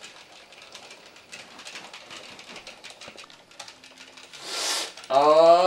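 Rapid, light clicking of Nintendo game controller buttons being pressed. Near the end a short hiss, then a loud pitched sound that rises in pitch.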